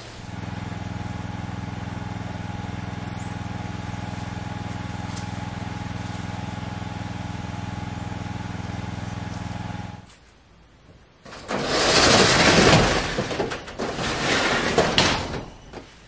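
A steady, unchanging engine-like hum for about ten seconds that cuts off abruptly, followed after a short pause by loud, rough noise with a few knocks.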